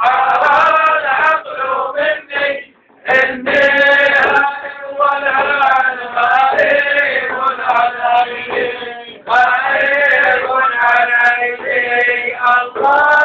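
A male voice chanting a Sufi devotional hymn in long sung phrases, over strokes of a large hand-held frame drum. The singing breaks briefly about 3 seconds in and again about 9 seconds in.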